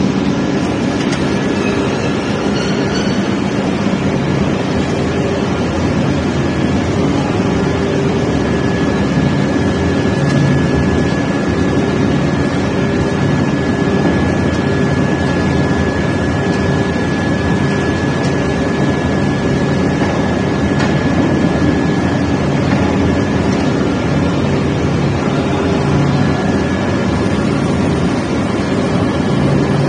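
Ring rolling machine running as a red-hot steel ring is rolled: a loud steady industrial drone with a low hum and a thin high whine.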